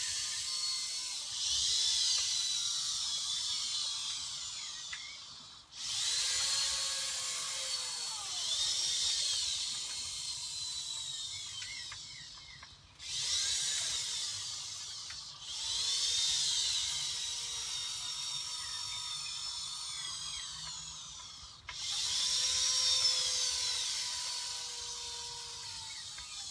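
Servo motors in an InMoov robot's arms and shoulders whining as the arms move through programmed poses. The sound comes in five bursts of several seconds each, and each has a high whine that rises and falls in pitch as the motors speed up and slow down.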